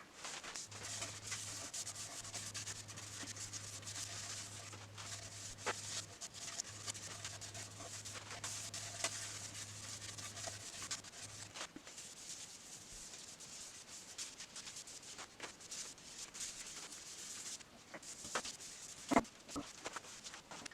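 Sandpaper rubbing against a yew platter turning on a wood lathe, a steady hiss. A low hum stops a little past halfway, and scattered taps and clicks follow near the end.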